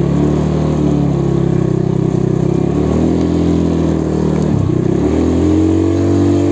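Motorcycle engine running on the move, a steady hum whose pitch dips briefly about four and a half seconds in and then settles at a new steady pitch.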